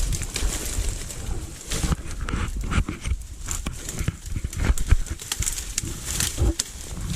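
Footsteps crunching and snapping through dry brush and twigs in an uneven, irregular walking rhythm, with low rumble from wind or handling on the microphone.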